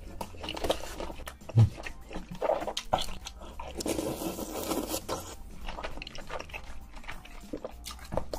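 Close-miked eating of noodles from a spoon: wet chewing, smacking and sucking mouth sounds with many small clicks. There is one heavy low thump about one and a half seconds in.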